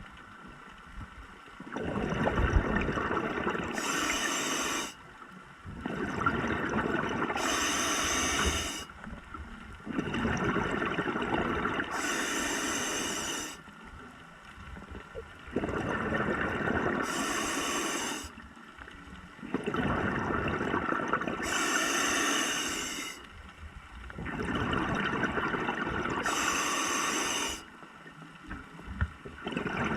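Scuba diver breathing through a regulator underwater: a short hiss on each inhale, then a longer rush of exhaled bubbles, about six breaths, one every four to five seconds.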